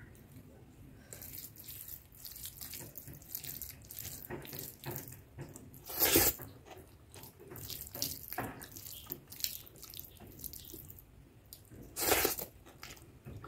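Close-up wet eating sounds of soft khichdi rice eaten by hand: many small wet mouth clicks and chewing, with louder bursts as a handful goes into the mouth about six seconds in and again near the end.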